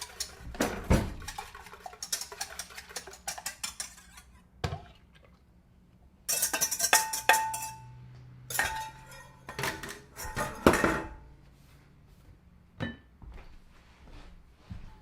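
Kitchen utensils clinking and scraping against a mixing bowl as waffle batter is mixed. Rapid clicks run for the first few seconds, then come louder bursts of clatter, one with a short ringing clink about seven seconds in, and a few single knocks near the end.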